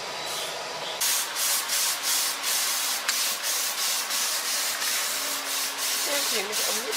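Rhythmic back-and-forth rubbing strokes, about four a second, starting about a second in, as if a surface on the machine were being sanded or scrubbed by hand.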